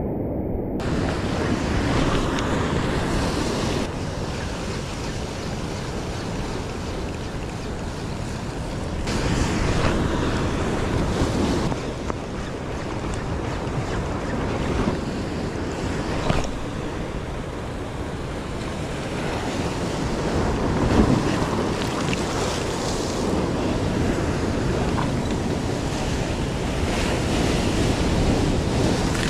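Heavy ocean swell surging and breaking against a rock ledge, with wind buffeting the microphone. The surf swells louder a few times, about a third of the way in and again past two-thirds.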